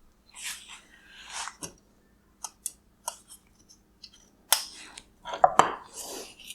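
Small hard plastic and metal parts being handled: a series of irregular clicks and taps with short scraping and rustling noises, the sharpest knocks about four and a half and five and a half seconds in.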